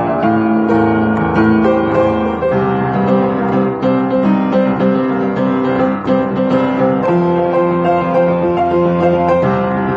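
Upright piano played with both hands: a melody over repeated chords, the notes ringing on one after another at an even, fairly loud level.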